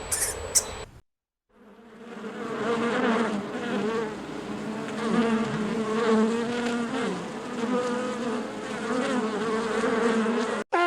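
A flying insect buzzing, its pitch wavering slightly. It fades in after a short break about a second in and keeps going until near the end.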